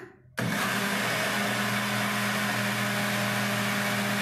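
Philco countertop blender switched on about half a second in, its motor starting abruptly and then running steadily as it blends thin cupcake batter with the flour just added.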